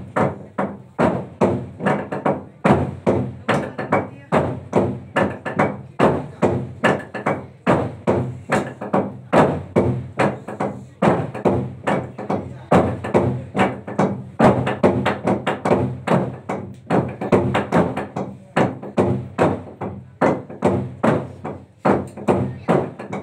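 Naga log drum, a long hollowed tree trunk, beaten by a row of players with wooden beaters: a fast, unbroken run of heavy wooden knocks, about three a second, over a low ringing tone from the hollow log.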